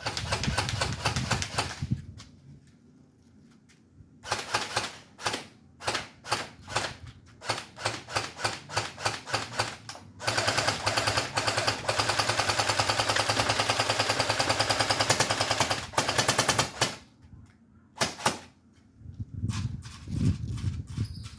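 Electric airsoft StG 44 replica firing: a short full-auto burst, then a string of single semi-auto shots at about one to two a second, then a long full-auto burst of about seven seconds, and two more single shots near the end.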